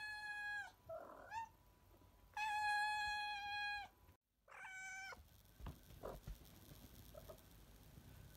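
Domestic cat meowing: two long, level-pitched meows of about a second and a half each, then a shorter meow a little after four seconds. A couple of soft low thumps follow the last meow.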